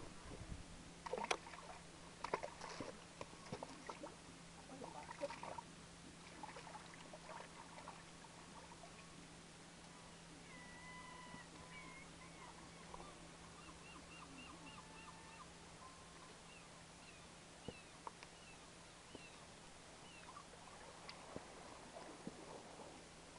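A few sharp knocks and clicks in the first several seconds, then faint bird calls: short chirps and whistles, some rising and some falling, through the middle.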